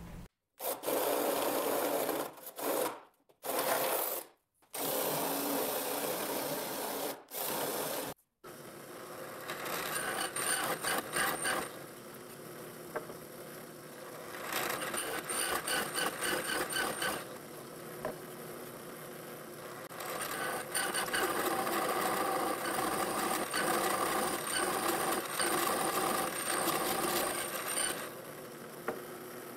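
Drill press running, its 1¼-inch spade bit boring through a hardwood board in three spells of cutting, with the motor running steadily in between. Before that, several short snippets of noise broken by abrupt cuts.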